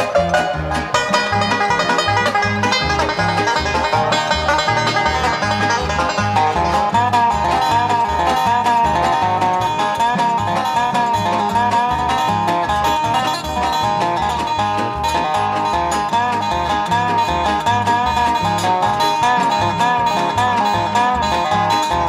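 Instrumental background music with a steady beat and a quick, busy melody line.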